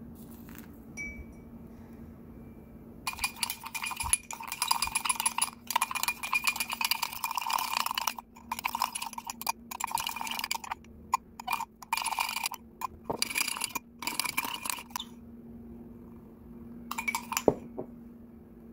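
Metal teaspoon beating instant coffee and sugar against the inside of a ceramic mug: a fast scraping clatter with short pauses for about twelve seconds, whipping the paste to a froth. A few clinks of the spoon on the mug come near the end.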